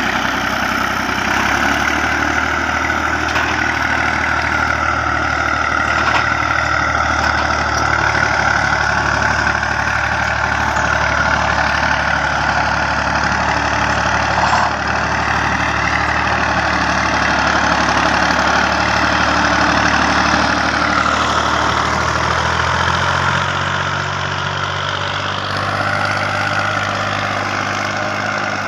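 Massey Ferguson 240 tractor's three-cylinder diesel engine running steadily under load while pulling a cultivator through tilled soil. Its low note shifts slightly near the end.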